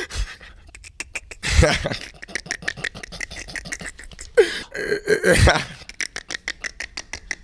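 A man making non-word vocal noises with his mouth, a rapper's ad-libs: long runs of rapid clicking and rattling, broken by a few short, loud cries that slide in pitch, about one and a half, four and a half and five and a half seconds in.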